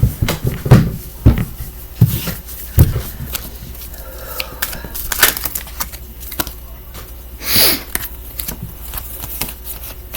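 Irregular knocks, taps and rustling close to the microphone, densest in the first three seconds, with a short breathy rush about seven and a half seconds in.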